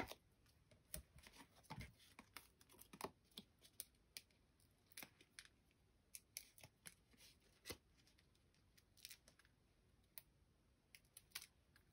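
Faint, scattered clicks, taps and light rustles of card stock and a plastic sheet of foam adhesive dots being handled on a tabletop.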